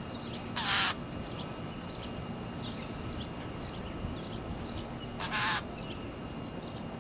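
Two harsh, raspy bird calls about four and a half seconds apart, with faint short high chirps scattered between them.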